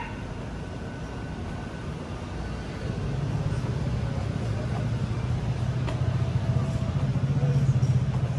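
A road vehicle's engine running close by, a low rumble that grows louder from about three seconds in, over general street noise.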